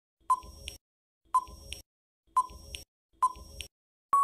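Countdown timer sound effect: four short electronic beeps, about one a second, then a longer steady beep starting just before the end as the count runs out.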